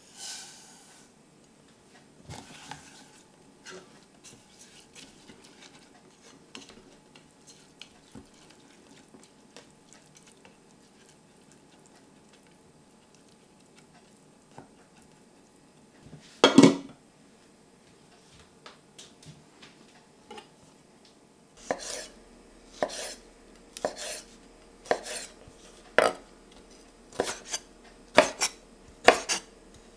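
Dry couscous poured into a stainless steel saucepan with a brief hiss, then a spoon stirring it with light scrapes and clicks against the pan, and one loud clatter midway. After that a chef's knife chops dried apricots on a wooden cutting board, about one chop a second at first and faster near the end.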